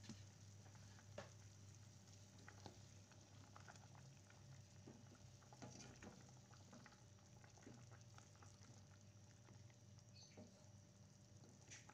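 Faint simmering of chicken in soy-sauce broth in a nonstick pan: scattered small pops and ticks of bubbling over a low steady hum, with a wooden spatula stirring the pieces.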